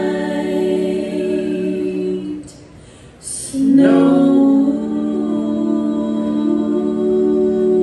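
A bluegrass band sings a slow song in close harmony on long held notes. About two and a half seconds in, the singing drops away for about a second, then the next phrase comes in louder.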